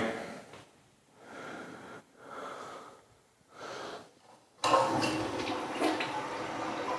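Three short airy suction strokes of a toilet plunger pump working a clog. About four and a half seconds in, the toilet flushes and water rushes steadily.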